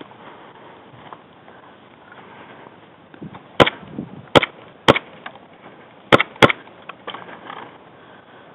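Five sharp, loud cracks of airsoft gunfire close by: three about half a second apart, then a quick pair a little over a second later.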